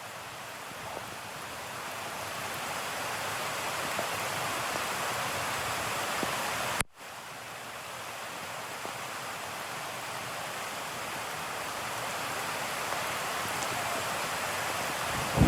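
Steady rain noise, a soft, even hiss that swells gradually and cuts out for an instant about seven seconds in before picking up again.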